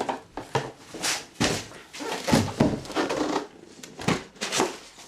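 Cardboard box of an airsoft rifle being opened and handled: a run of irregular knocks, thumps and scrapes.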